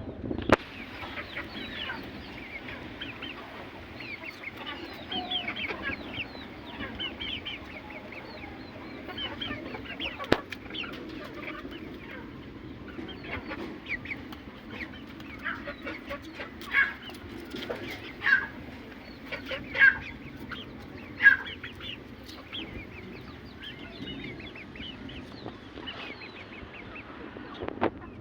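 Aseel chickens clucking, a steady stream of many short calls from several birds. Four louder calls about a second and a half apart come in the middle, and there are two sharp clicks, one near the start and one about ten seconds in.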